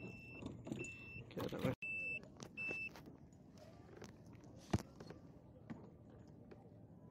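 Short electronic beeps at one high pitch, four of them in the first three seconds, over scattered clicks and rattles of gear, with one sharp knock near the five-second mark.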